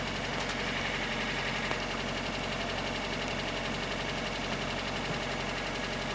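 A steady low engine hum, as of a motor idling, unchanging throughout, with a steady high hiss above it.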